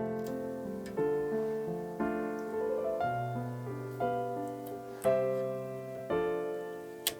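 Background piano music, a slow melody with the notes and chords changing about once a second. A single sharp click sounds near the end.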